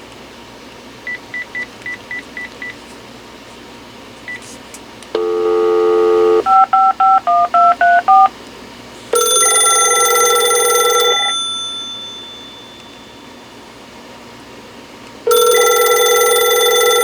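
A phone's keypad beeps a few times, then a dial tone sounds briefly and a number is dialed in eight touch-tone beeps. Then a Panasonic KX-TG6841 DECT 6 cordless phone rings twice, each ring about two seconds long, some six seconds apart, as the incoming call arrives.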